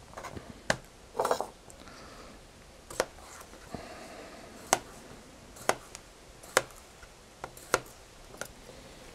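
Folding knife cutting raw potatoes into small cubes on a plastic cutting board: short, sharp taps as the blade goes through and strikes the board, at irregular intervals of roughly one a second.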